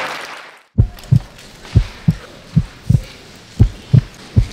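Applause fading out, then after a brief silence a heartbeat sound effect: low paired thumps, lub-dub, about one beat a second, five beats in all.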